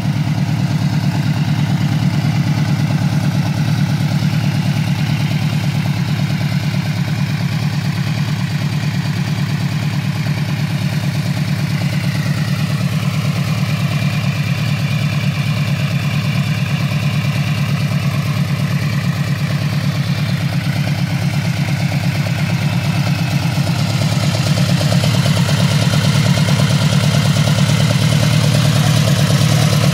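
Yamaha VMAX's 1,679 cc V4 engine idling steadily, getting slightly louder in the last few seconds.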